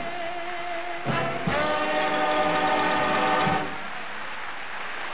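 Dance orchestra with brass ending a pop song on a long sustained final chord, struck about a second in and cut off about three and a half seconds in. A steady wash of applause follows.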